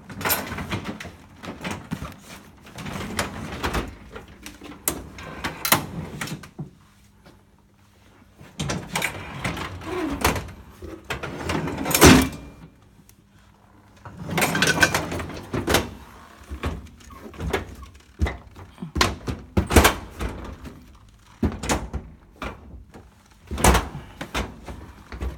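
Stored items being handled and shifted about: spells of knocks, clunks and scraping with short pauses between them, the loudest knock about twelve seconds in.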